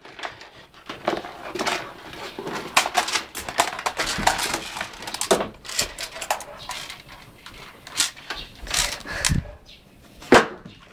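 Irregular scuffing, tapping and knocking as a Labrador retriever puppy scrambles about on a wooden floor and onto a bed, mixed with close rustling from the handheld camera, with a louder knock near the end.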